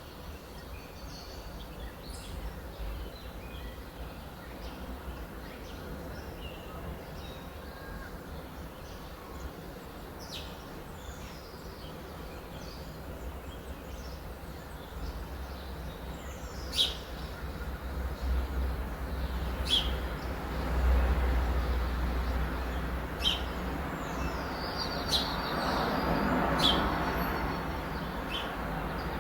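Birds chirping and calling in short scattered notes, with several sharper calls in the second half, over a steady low rumble of outdoor background noise that swells louder in the second half.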